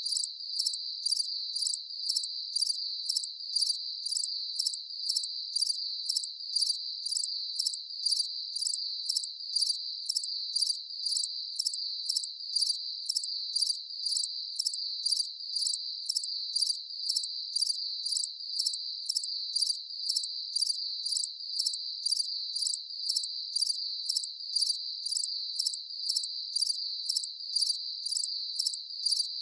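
Crickets chirping at night: a steady high trill with a louder pulse about twice a second, evenly repeated throughout.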